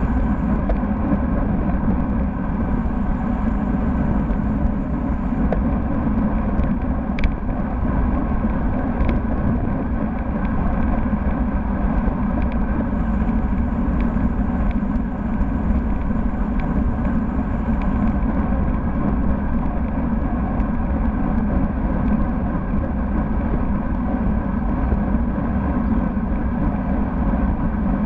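Steady wind rush and road rumble on a bike-mounted camera's microphone while a road bike rolls along at speed in a group ride, with a couple of faint ticks about seven and nine seconds in.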